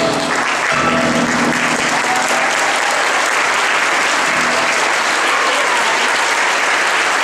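Audience applauding steadily, a dense sustained clapping after the final piano chord.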